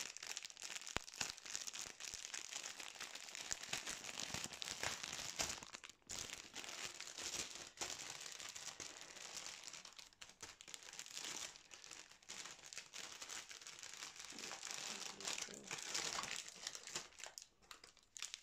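Plastic packaging crinkling and rustling as a plastic-wrapped bundle of bagged diamond-painting drills is handled, full of small crackles. It dies away shortly before the end.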